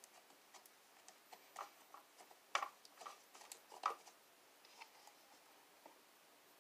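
Hands working slime, with faint irregular squelches and clicks as air bubbles pop; two louder pops come near the middle.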